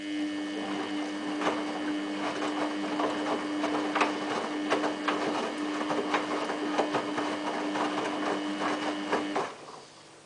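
Samsung WF8804RPA front-loading washing machine running during its first rinse: a steady hum with dense rapid clicking and rattling. It starts abruptly and cuts off after about nine seconds.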